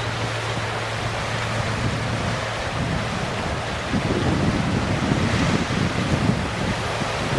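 Wind blowing across the microphone, with rushing noise and a steady low hum underneath; the low buffeting gets heavier and gustier about four seconds in.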